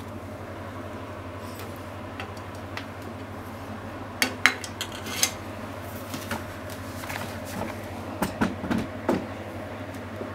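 Cooking utensils clinking and knocking against a pot and frying pan in two short clusters, about four seconds in and again around eight to nine seconds, over a steady low hum.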